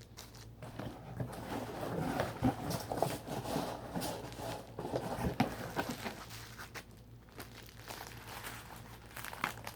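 Packaging being handled and unwrapped: irregular crinkling and rustling with small knocks and clicks, busiest in the first half.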